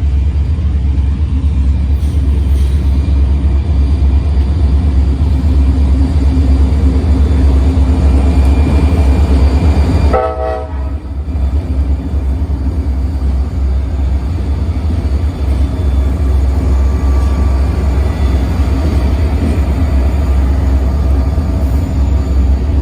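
Freight train passing with a loud, heavy low rumble throughout. A brief tone sounds about ten seconds in, and the rumble dips just after it.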